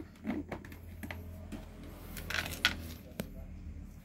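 Plastic jar and its perforated plastic lid being handled as the lid is taken off: light plastic clicks and rustling, busiest about two and a half seconds in, with a sharp click a little after three seconds.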